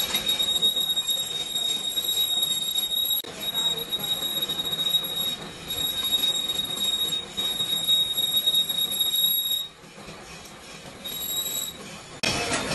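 A power tool working metal: a steady high-pitched whine over a rasping noise. It breaks off briefly a few times and falls away about ten seconds in, before a louder rasping burst starts near the end.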